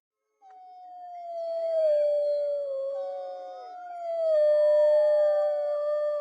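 Wolves howling in chorus: long, overlapping howls that start about half a second in and slide slowly down in pitch, with a second, higher voice weaving above the main one.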